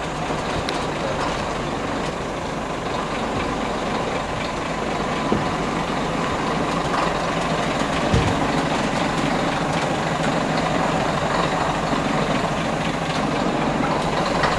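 Classic Scania truck's diesel engine idling steadily. There is one brief low knock a little past halfway.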